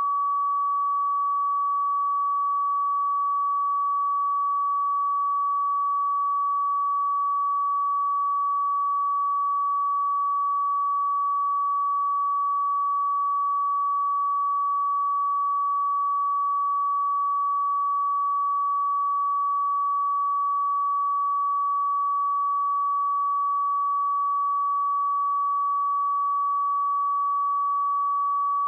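A pure 1138 Hz sine-wave test tone, held steady at one pitch and one level throughout.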